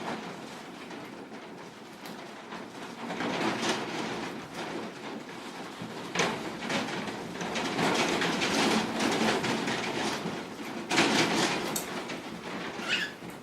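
Window storm shutters rattling and clattering in typhoon wind and rain, swelling in gusts about three seconds in and again near the end, with a cockatiel's short call near the end.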